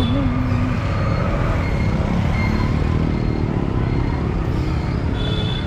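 Busy street traffic heard from a moving cycle rickshaw: a steady mix of auto-rickshaw and motorbike engines and road rumble, with brief high ringing tones near the end.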